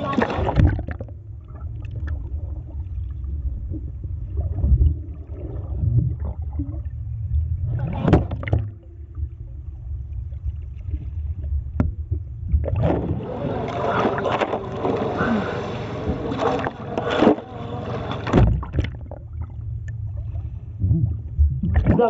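Sea water sloshing and gurgling against a waterproof camera dipped at the surface beside a purse seine net, heard muffled with a steady low rumble. There are louder bursts of splashing about eight seconds in, again for several seconds around the middle, and near the end.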